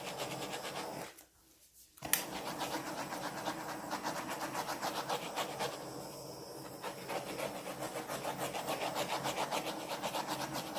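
Handheld butane torch flame hissing with a rapid flutter as it is played over wet acrylic paint; the torch is nearly out of butane. The sound cuts out completely about a second in and comes back about a second later with a sharp click.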